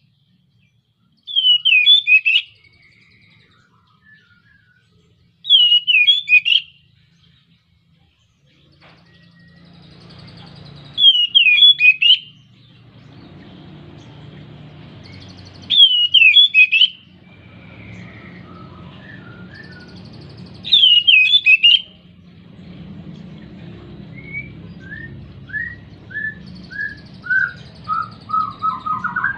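Male oriental magpie-robin (kacer) in breeding condition singing: five loud, roughly second-long phrases, each repeated four to five seconds apart. Near the end comes a run of short, quick notes stepping down in pitch.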